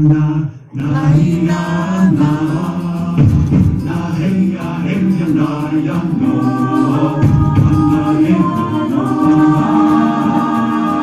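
Music with sung vocals over held tones. It drops out briefly just under a second in, then carries on.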